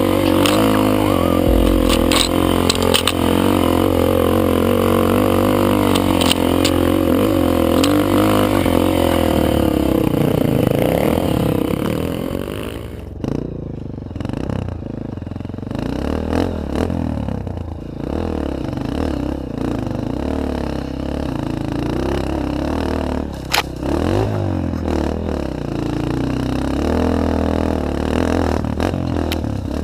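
Trail motorcycle engines running: a steady droning engine note for about the first twelve seconds, then quieter with revs rising and falling and occasional clattering knocks.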